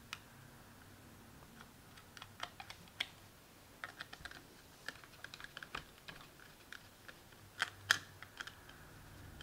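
Small clicks and taps of a screwdriver and metric 3 machine screw against a nut and 3D-printed plastic case as the screw is driven, coming in an irregular scatter with the loudest pair near the end.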